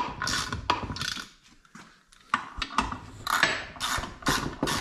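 Hand socket ratchet clicking in quick short strokes as it runs down the housing bolts on a rebuilt ATV rear differential, with a pause of about a second shortly after it starts.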